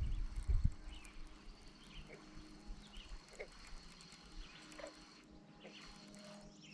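Scattered short animal chirps and calls over a faint steady hum, with a few low thumps in the first second.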